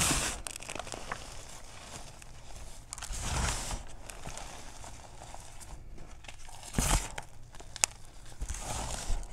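Cornstarch-topped gym chalk being squeezed and crushed by hand: soft powdery crunching and crumbling. There are louder crunches at the start, about three seconds in and near seven seconds, and a sharp crack just before eight seconds.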